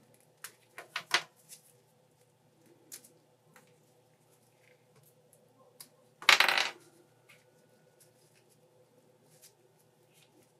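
Small plastic parts of a figma action figure clicking and tapping as gloved hands pull off and fit its hair and accessory pieces: a few sharp clicks about a second in, faint ticks throughout, and a louder half-second clatter a little past the middle.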